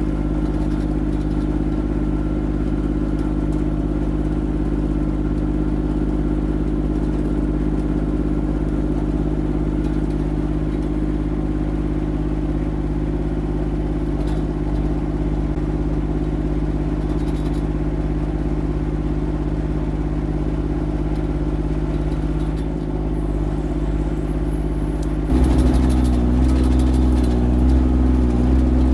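Small engine of a compact machine running steadily while it clears snow; about 25 seconds in the engine note drops deeper and gets louder.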